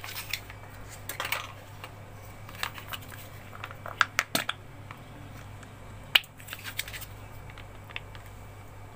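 Plastic mayonnaise pouch crinkling and crackling as it is handled and squeezed into a glass bowl, with scattered sharp clicks, the loudest a quick cluster about four seconds in and another about six seconds in.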